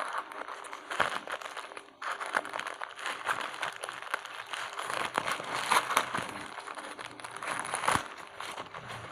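Thin black plastic courier mailer bag crinkling and crackling as hands grip it and pull it open, with a brief lull about two seconds in and a few sharper snaps.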